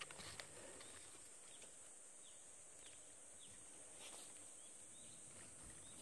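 Near silence: quiet forest ambience with a faint steady high hiss, a few faint short falling bird chirps in the middle, and a couple of light handling clicks.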